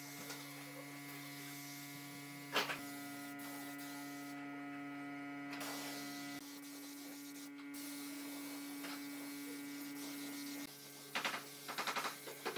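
Low steady hum, with short hisses from a gravity-feed spray gun spraying finish: once about two and a half seconds in, then several quick bursts near the end.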